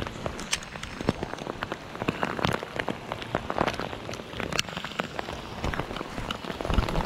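Rain falling steadily, with many sharp close-by drop hits.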